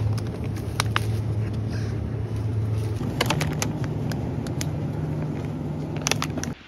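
Low steady hum of refrigerated supermarket display cases, its pitch stepping up about three seconds in. Over it come a few short crinkles and clicks of plastic meat packaging being picked up and handled, and the sound cuts off just before the end.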